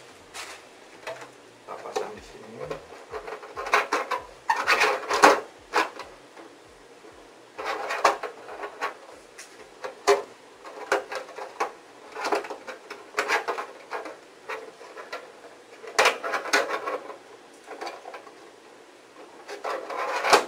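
Hands handling a 1:10 nitro RC car and its parts: irregular clicks, knocks and rustling, with no engine running.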